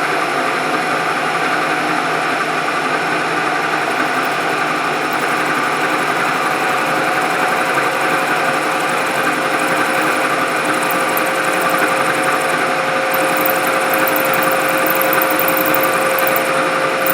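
Knee milling machine running steadily, its cutter being fed through a cut in a metal part, a constant machine whine with a steady hum.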